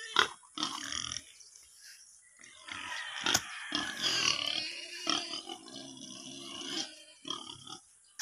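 Bolo knife hacking at the fibrous base of a banana stem: a few sharp chops, with rough scraping and tearing of the stem's dry sheaths between them.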